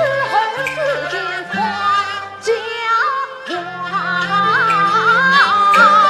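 Yue opera singing: a woman's voice sings a lyric line in long, bending notes with a wide vibrato, climbing higher in the second half, over instrumental accompaniment with occasional percussion strikes.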